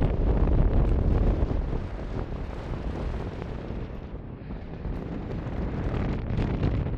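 Gusty mountain wind buffeting the microphone: a heavy, low rumble that eases a little in the middle and builds again near the end.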